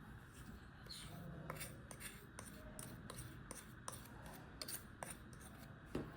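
Light kitchen handling: an irregular run of short scrapes and clicks, about two to three a second, with a sharper click near the end.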